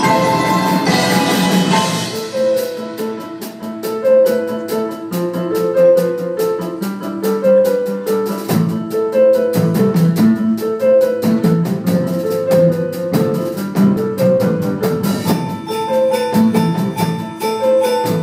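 A percussion ensemble of marimbas, vibraphones and other mallet percussion playing a piece, with a repeating mallet melody over a lower bass line and quick mallet strokes.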